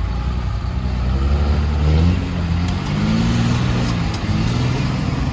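A truck engine revving up under load as it accelerates into deep mud. Its pitch climbs over about two seconds, then holds at high revs.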